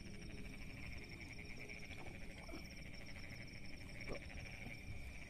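Night chorus of frogs and insects in a flooded rice paddy: a steady, finely pulsing trill with a thinner, higher buzz above it, unbroken throughout.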